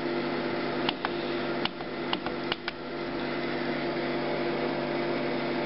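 HP DesignJet Z3200 wide-format printer humming steadily while idle. About five sharp clicks fall in the first three seconds as its front-panel buttons are pressed.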